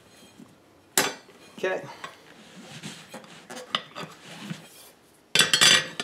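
Steel tire spoons and locking pliers clinking and clanking against a steel lawn tractor wheel rim as a spoon is set between the tire bead and the rim. A sharp clank comes about a second in, lighter clicks follow, and a loud metal-on-metal clatter comes near the end.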